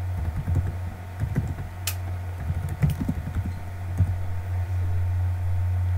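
Computer keyboard typing: irregular keystrokes and clicks, one sharper click about two seconds in, over a steady low hum.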